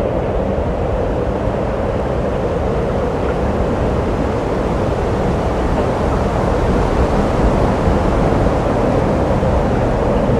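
Steady rushing noise like wind streaming past, even throughout and a little louder in the second half, with no clear pitch.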